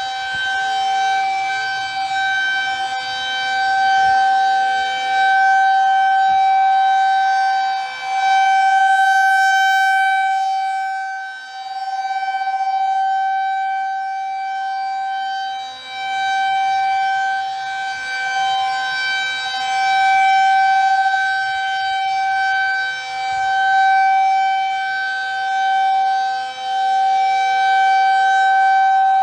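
Federal Signal 2001 tornado siren sounding a steady tone for a routine test, its loudness swelling and fading every few seconds as the rotating horn sweeps past.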